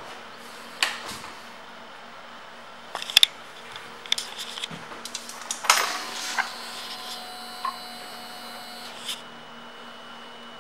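Clicks and knocks of hands working the controls at the handlebar of a 2007 Suzuki Boulevard M50, the loudest two close together about three seconds in. A little before halfway a faint steady whine comes in and holds for about two seconds, typical of the fuel-injected bike's fuel pump priming as the ignition is switched on before starting.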